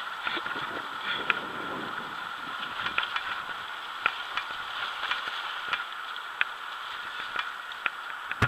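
Mountain bike riding over a muddy, root-strewn woodland trail: a steady hiss of tyres and rushing air, with irregular sharp clicks and rattles from the bike jolting over bumps.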